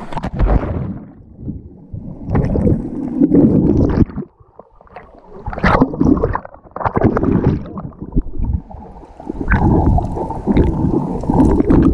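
Water sloshing and bubbling against an action camera as swimmers dive underwater in a river, heard muffled and in uneven surges with a brief drop-out about four seconds in.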